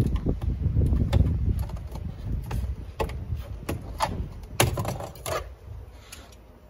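A low rumble for the first couple of seconds, then scattered sharp clicks and knocks as a screwdriver and hands work at the plastic door card (trim panel) of a car door.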